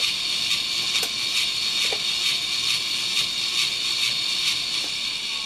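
Electric motor driving a wheel, running steadily under a motor controller, with a steady whir and a regular click about twice a second.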